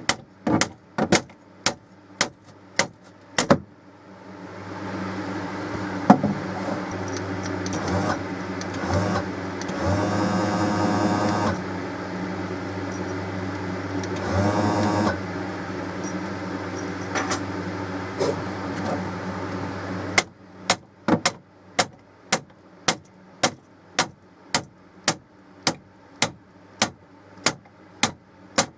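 Jayco pop-up camper's electric lift motor running steadily for about fifteen seconds, with a louder whine twice partway through. Before and after it, a regular clicking, about two or three clicks a second.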